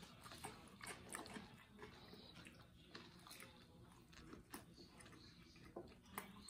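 Faint chewing of pizza and chicken wings, with scattered small clicks and smacks from the mouth.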